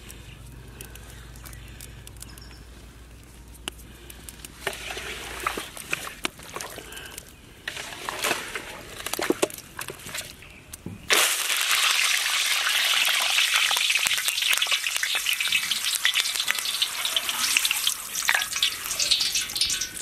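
Wet squelching and slapping of hands mixing chicken legs in a thick marinade in a steel bowl. About eleven seconds in, it switches abruptly to loud, steady sizzling and crackling of hot oil in an iron kadai.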